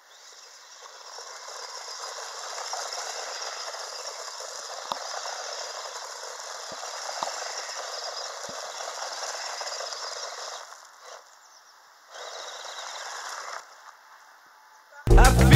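Radio-controlled car skidding and spinning its tyres across loose gravel: a steady rattling hiss of churned stones with a few scattered clicks for about ten seconds, then a shorter burst after a brief pause. Loud music cuts in abruptly near the end.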